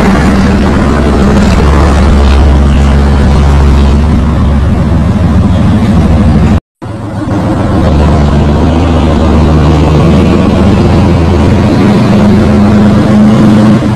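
FNM D-11000 five-axle truck's diesel engine running as the truck drives, its note shifting down and later back up in pitch. The sound cuts out completely for a moment just past halfway, then returns.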